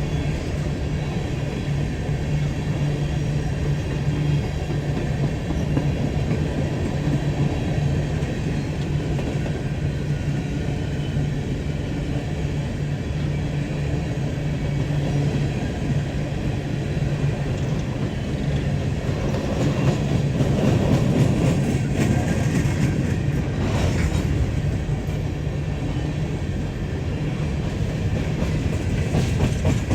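Diesel freight locomotive running with a steady low hum, with a louder stretch of rumble and rattle about twenty seconds in.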